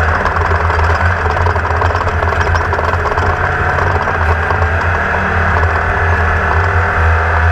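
Class 1600 off-road race buggy's air-cooled Volkswagen engine running at a steady speed, with a constant rattle over it, heard on board.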